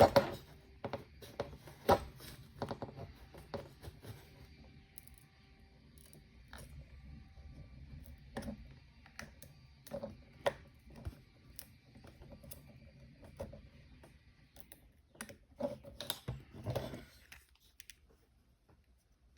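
Pry tool clicking, tapping and scraping against an iPhone SE's frame as the screen is worked loose around its edges. The small irregular clicks are busiest near the start and again briefly near the end.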